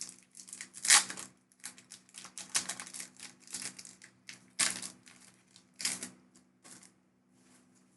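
Pokémon card packaging being handled as a new Elite Trainer Box and its first booster pack are opened: a run of quick crinkles, rustles and clicks, loudest about a second in and again near five and six seconds, stopping about seven seconds in.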